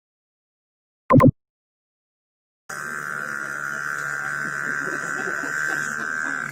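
A boy imitating a generator with his mouth: a short sputtering burst about a second in, then from about three seconds in a steady whining drone with a low hum beneath it.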